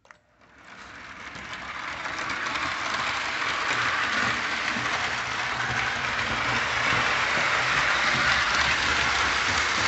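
O27 toy train moving off and running on three-rail track: electric motor hum and the rattle of wheels on the rails, swelling over the first two or three seconds as it gathers speed, then steady. A short click just at the start.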